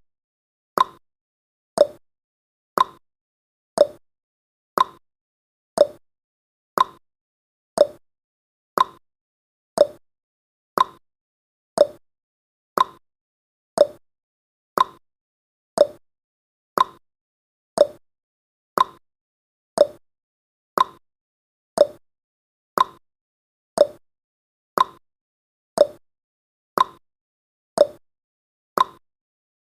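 Clock-style tick-tock sound effect counting off seconds: one sharp tick each second, alternating between a higher and a lower tick.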